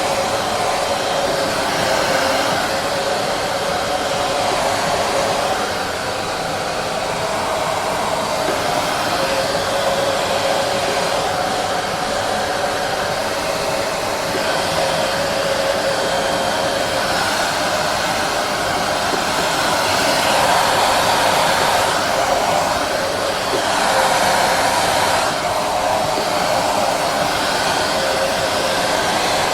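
Repronizer hair dryer running steadily: a continuous rush of blown air. Its tone shifts slightly a few times, briefly dipping about six seconds in.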